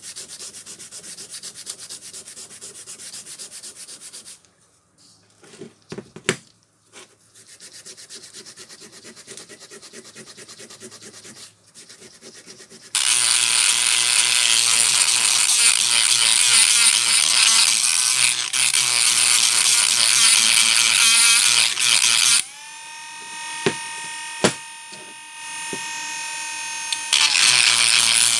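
Steel hammer head being hand-sanded, a steady dry rubbing, followed by a few knocks as it is handled. About halfway through, a rotary tool with a small bit starts grinding inside the hammer's eye with a loud hiss. It eases to a steady whine of the tool running lightly for several seconds, then bites again near the end.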